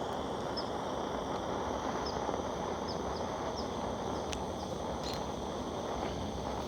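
Steady hiss of a gas torch flame, turned down low, melting beeswax comb to drip onto a hive, with a few faint high ticks.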